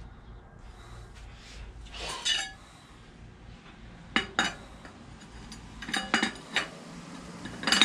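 Metal clinks and taps as a large chain sprocket is fitted over a bicycle rear wheel's hub against the spokes, in a few scattered sharp knocks.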